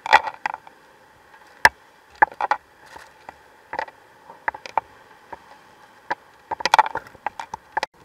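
Irregular sharp clicks and knocks, some in quick clusters, with a dense run near the end, over a faint steady hiss.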